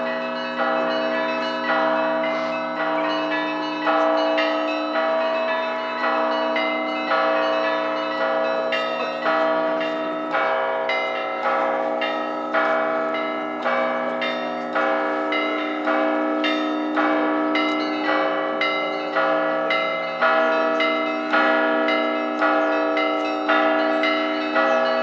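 Russian church bells ringing in a continuous peal. Several bells of different pitch are struck in a steady rhythm, with a heavier stroke about once a second over quicker strokes of smaller bells, their tones ringing on between strikes.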